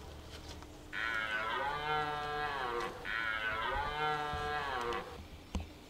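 Red deer stag roaring in the rut: two long roars of about two seconds each, back to back, each sagging in pitch at the end.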